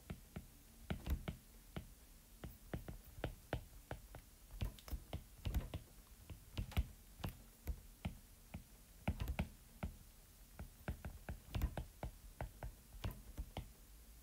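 Stylus tip tapping and clicking on a tablet's glass screen during handwriting: irregular sharp clicks, a few a second.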